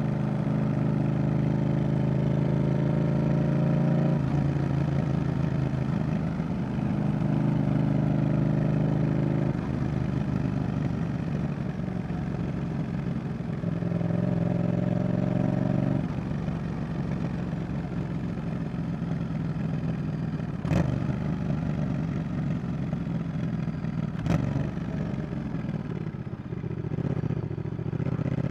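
Yamaha XSR700's 689 cc CP2 parallel-twin running through an aftermarket Roadsitalia Double Fire exhaust while riding, with the engine note changing several times as the throttle is opened and closed. In the second half it is quieter, off the throttle. There are two sharp clicks a few seconds apart near the end.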